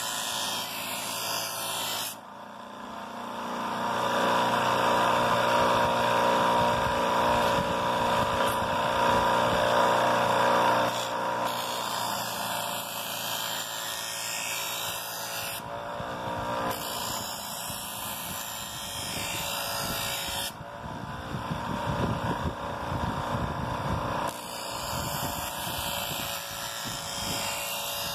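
Electric grinder motor running with a steady hum, louder for a stretch near the start. A knife scrapes along the edge of a boomerang blank in repeated stretches of a few seconds to take off the burr.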